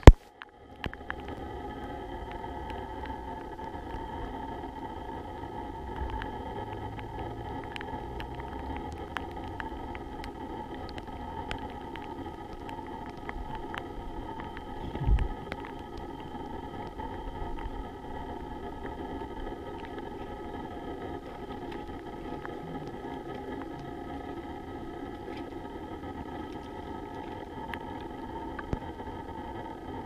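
Steady outdoor background noise with several faint steady high tones and scattered light ticks. There is a single low bump about halfway through.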